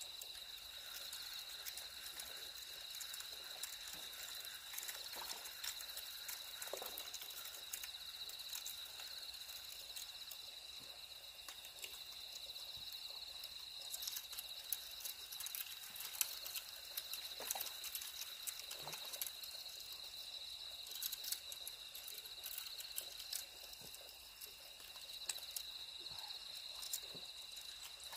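Faint, steady chorus of night insects, likely crickets, trilling in one high continuous pitch, with scattered faint clicks.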